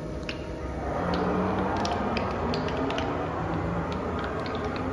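Haas GR-712 CNC gantry router's axis drives running: a mechanical whir with short, shifting tones that grows louder about a second in, with scattered light clicks and ticks.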